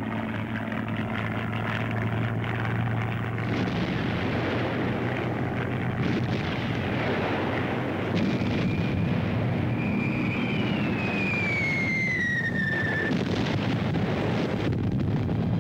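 Battle sound effects of an air raid: a dense, steady rumble of aircraft and explosions, with a whistle that falls in pitch for about three seconds starting about ten seconds in, like a falling bomb.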